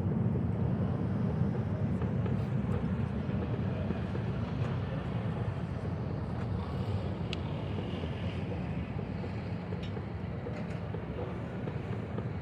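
Night-time city ambience by a river: a steady low rumble with a faint wash of noise above it and a few soft scattered clicks, easing slightly toward the end.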